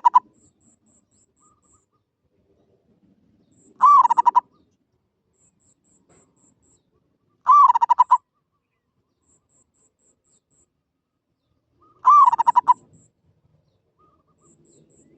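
Zebra dove cooing: a short note that swells and dips, running straight into a quick stuttering trill, each call under a second long and repeated about every four seconds.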